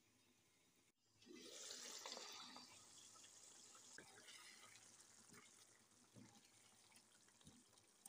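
Faint sizzling and bubbling of chicken masala gravy simmering in an uncovered pan. It starts suddenly about a second in, is strongest for the next couple of seconds, then settles to a quieter simmer with a few soft pops.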